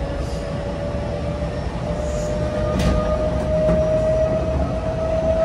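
Tokyo Metro Hanzomon Line electric train heard from inside the car while running: low rumble of the wheels on the rails under a steady motor whine that slowly rises in pitch as the train gathers speed. A single brief click comes about three seconds in.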